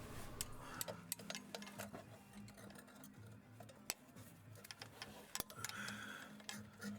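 Faint, irregular clicks and ticks over a low steady hum, the sharpest a little under 4 s and about 5.4 s in.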